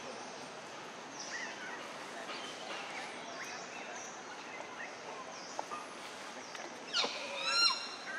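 Forest ambience: scattered short bird chirps and whistles over a steady hiss. Near the end a loud, high call rings out, a quick run of falling squeals.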